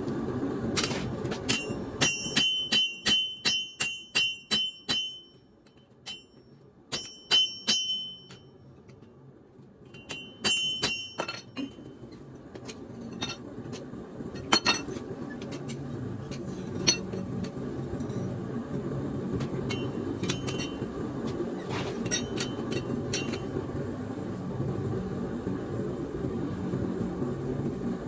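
Hammer blows on steel over an anvil, each ringing with a bright tone, in quick runs of about three strikes a second with pauses between, then a few scattered knocks. A steady low rushing noise lies underneath.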